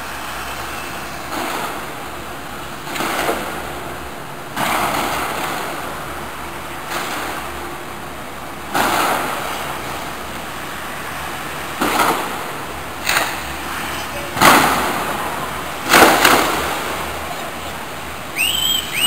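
A series of about ten loud shots, irregularly spaced a second or more apart, each trailing off in an echo: tear gas launchers being fired, the reports ringing off the surrounding buildings.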